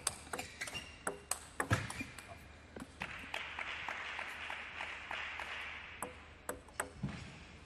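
Table tennis rally: the ball clicking off rubber bats and the table in quick succession, many sharp hits a fraction of a second apart.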